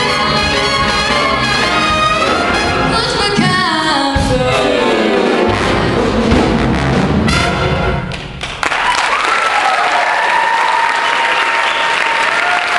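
A high school jazz big band with brass, drums and piano, backing a female singer, plays the closing phrases of a song and ends on a final hit about seven seconds in. After a short gap the audience breaks into applause and cheering.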